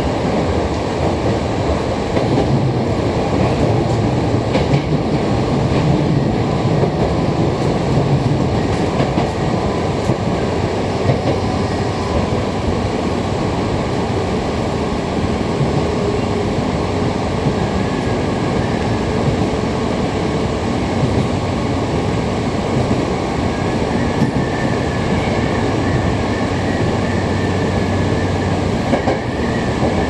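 Running noise of a Hankyu 6000 series electric train at speed, heard from inside the driver's cab: a steady rumble of wheels on the rails with some clickety-clack, and a faint high whine in the second half.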